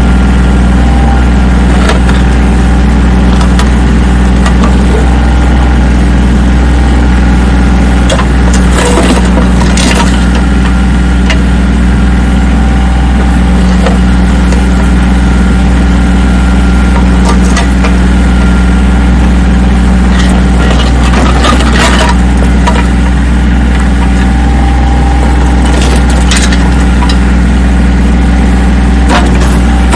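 Engine of a digging machine running steadily under load while breaking up an old concrete sidewalk, with scattered brief knocks and scrapes of concrete being broken and pried up.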